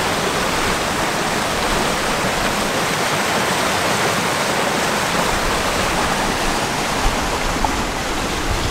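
Small waterfall on a rocky creek: water cascading and splashing down between granite boulders in a loud, steady rush.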